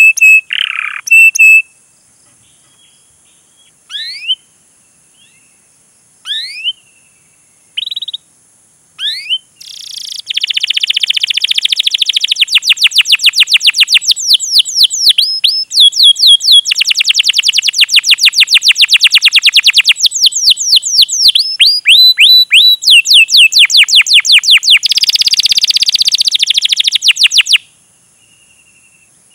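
Domestic canary singing: a few scattered, sharp rising chirps, then from about ten seconds in a long, fast run of rising chirps repeated several times a second, which stops a couple of seconds before the end.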